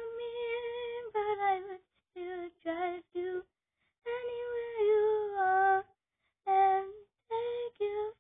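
A young girl singing alone without accompaniment. She sings held notes in short phrases separated by brief pauses.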